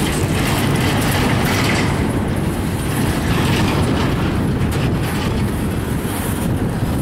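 Norfolk Southern double-stack intermodal train's well cars rolling past: a loud, steady rumble of steel wheels on the rails.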